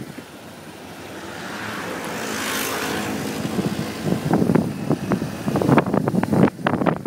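Car driving along a road: engine and road noise swells to a peak and fades about halfway through, then gusts of wind buffet the microphone.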